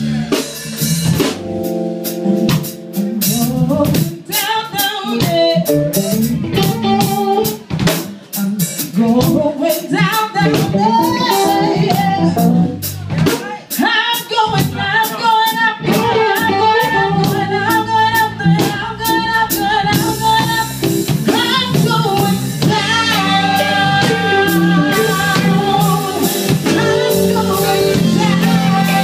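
A woman singing lead over a live neo-soul band, with a drum kit keeping the beat.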